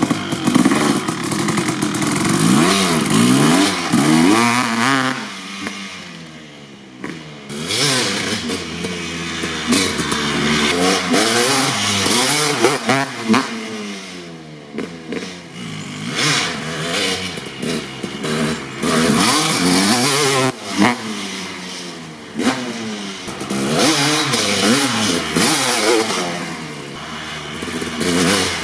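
2003 Kawasaki KX250 single-cylinder two-stroke dirt bike with an FMF Gnarly expansion pipe and Pro Circuit R-304 silencer, being ridden hard. The engine revs up and drops back again and again through the gears. It grows fainter several times and then louder again as the bike moves away and comes back.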